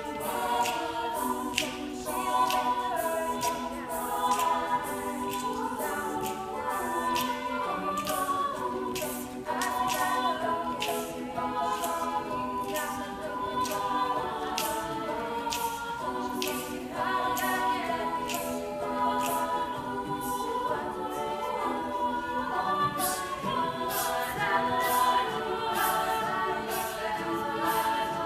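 A cappella group singing in close harmony, with sharp clicks about twice a second keeping the beat.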